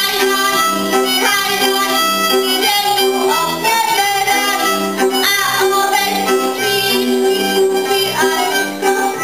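Moravian folk band playing dance music: a fiddle carries the melody over cimbalom, with a bass marking a steady beat.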